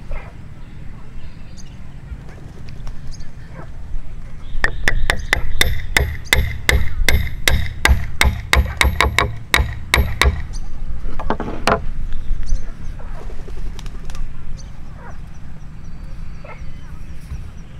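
A quick run of hammer blows, about three or four a second for some five seconds, knocking a hand-cut mitred dovetail joint home in wood, each blow with a short ring. A single blow follows about a second later.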